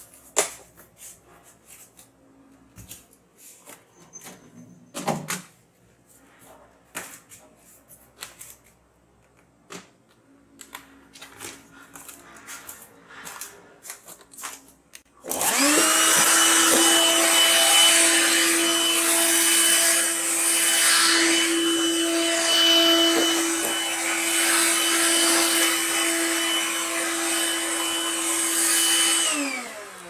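A few scattered light clicks and knocks, then about halfway through a vacuum cleaner switches on abruptly. It runs with a steady whine over its airflow noise for about fourteen seconds, and its pitch falls away as it is switched off near the end.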